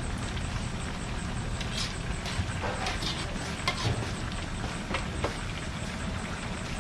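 Slotted metal spatula stirring a simmering coconut-milk fish stew in a wok, scraping and knocking against the pan several times, over a steady low hum.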